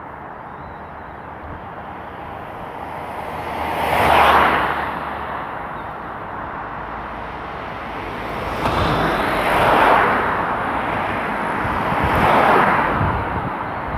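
City street traffic: cars drive past one after another over a steady background hum. Three pass-bys swell and fade, about four seconds in, near ten seconds and again near the end.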